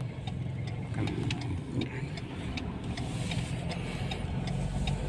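Inside a moving car: a steady low engine and road hum, with a turn signal ticking about twice a second.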